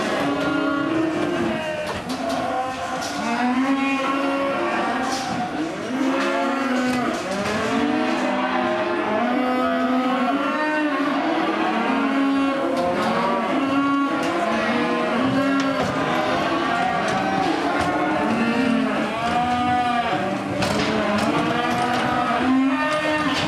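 Many calves bawling over one another without a break, overlapping calls rising and falling in pitch, with a few sharp knocks among them.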